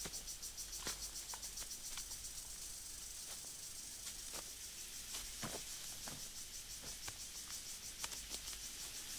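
Jungle ambience of insects chirring in a fast, even pulse, with scattered light clicks and taps.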